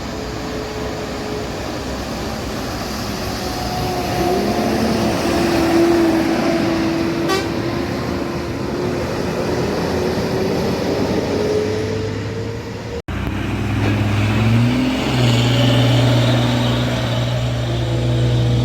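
Intercity buses running at speed, with a steady, pitched exhaust drone that slides slowly in pitch. About thirteen seconds in the sound cuts abruptly to a lower, steady drone.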